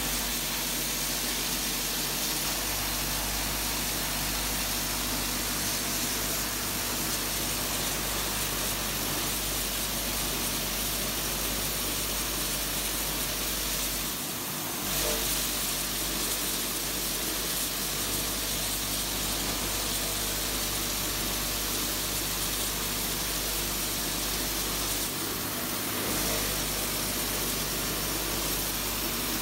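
Steady din of nail-making machinery, an even, constant noise over a low hum with no distinct strokes, shifting slightly twice.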